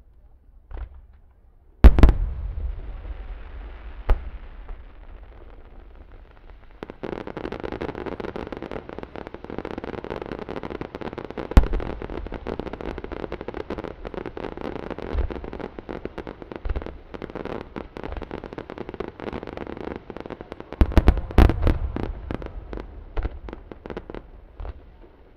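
Large Japanese starmine fireworks barrage: two heavy booms about two seconds in, then from about seven seconds a dense, continuous run of rapid shots and bursts. A cluster of loud booms comes near the end before it thins out.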